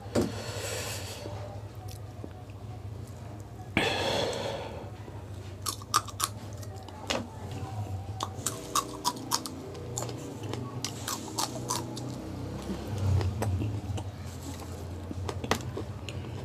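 Close-up mouth sounds of a person eating raw green chillies. There are two loud breathy bursts in the first few seconds, then a long run of crisp, irregular crunches and wet mouth clicks as the chilli is bitten and chewed. A steady low hum runs underneath.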